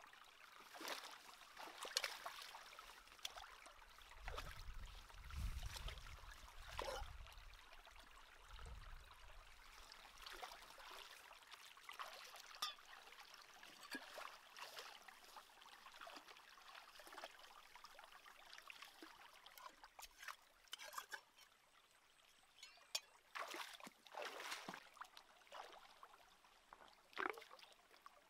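Shallow rocky stream trickling, with irregular small splashes and sloshes as hands and feet move through the water.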